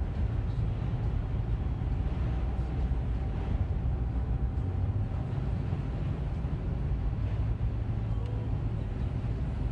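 Car driving on a snowy highway, heard from inside the cabin: a steady low rumble of road and engine noise.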